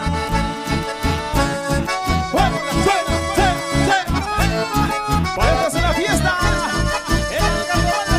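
Live band music led by two button accordions, with guitars and a steady, even bass pulse.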